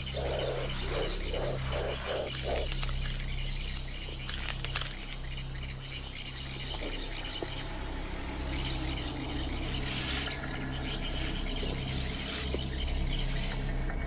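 A rainforest chorus of frogs and insects calling steadily. About six low croaks come in a quick run during the first three seconds, over a steady low hum.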